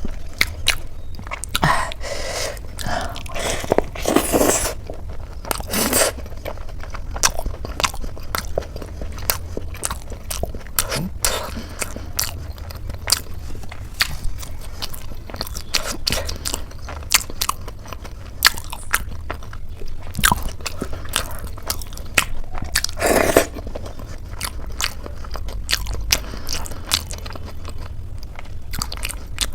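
Close-up mukbang eating sounds of a person biting into and chewing crisp khasta samosa with ghugni: crunches and wet mouth clicks all through, with louder crunchy bites in the first few seconds and again about three-quarters of the way in. A steady low hum runs underneath.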